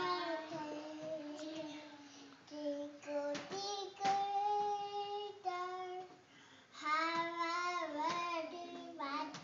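Toddler singing a simple tune in drawn-out notes, in several phrases with brief pauses between them.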